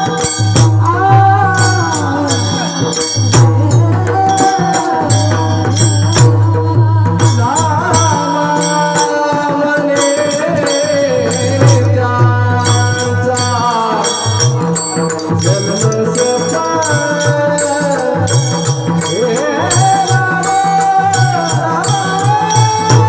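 Devotional folk music led by mridang drumming: deep two-headed barrel-drum strokes under a gliding melodic line, with fast, bright percussion strokes throughout.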